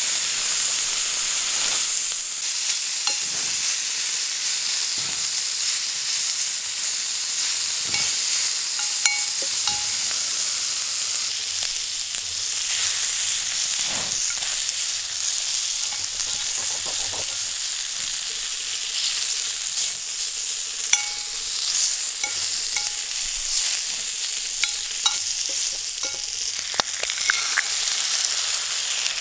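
Food sizzling as it fries: a steady hiss with small pops and clicks scattered through it.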